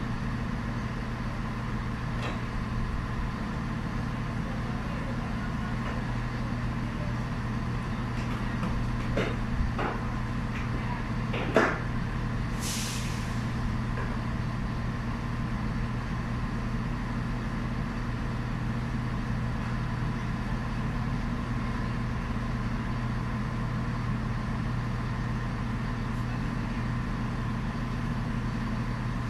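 Class 170 Turbostar diesel multiple unit standing at a platform with its engines idling, a steady low hum. A little before halfway there is a sharp knock, and about a second later a short hiss of air released from the train's air system.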